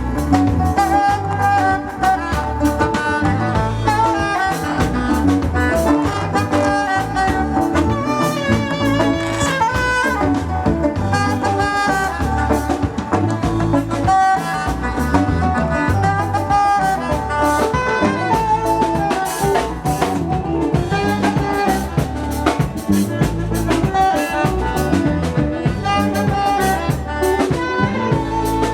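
A live band playing an instrumental number at a sound check, with a melody carried over drums keeping a steady beat.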